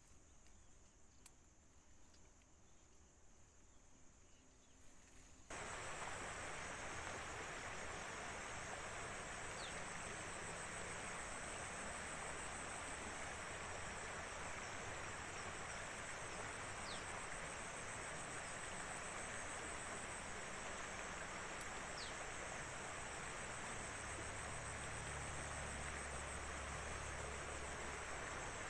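Steady outdoor ambience of insects trilling in one continuous high band over an even hiss, starting abruptly about five seconds in; before that only faint background.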